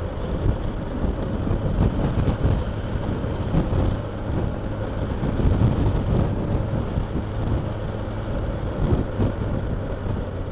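Suzuki Bandit motorcycle's inline-four engine running at a steady road speed, mixed with wind rushing over the microphone.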